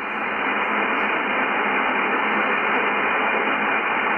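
Shortwave receiver hiss from a Yaesu FTdx10 in upper sideband on the 20-metre band, with no station on the frequency for the moment. A steady, muffled hiss held to the radio's narrow 3 kHz voice filter, swelling a little over the first second.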